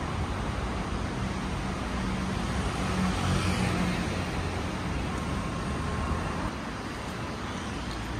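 Street traffic: a steady hum of road vehicles, louder as one passes about three to four seconds in.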